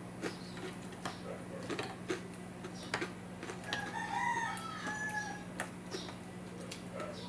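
A rooster crowing once, about four seconds in, over scattered small clicks and smacks of chewing and eating.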